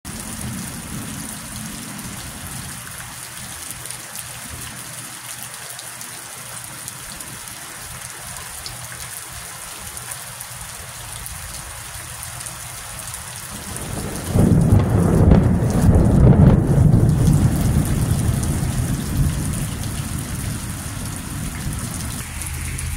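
Steady rain falling, then about two-thirds of the way through a sudden loud clap of thunder that rolls on, deep and rumbling, and slowly fades.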